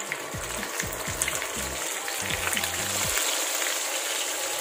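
Dried fish (daing) sizzling and crackling as it fries in hot oil in a pan, the sizzle growing louder about a second in.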